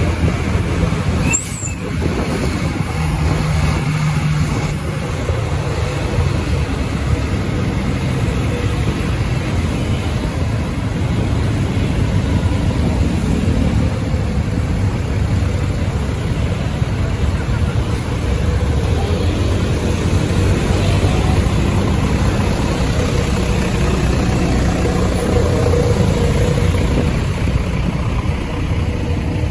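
Steady rumble of vehicle engines and road noise, with no horn melody standing out.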